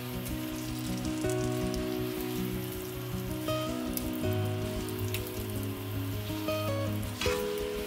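Small whole potatoes sizzling and crackling as they fry in oil and butter in a nonstick pan. Held notes of background music play underneath.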